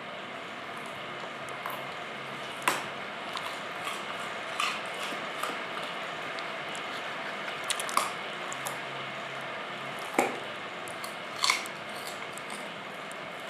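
A dog chewing a raw carrot: a handful of sharp, wet crunches a second or two apart, with quieter chewing between, over a steady hiss.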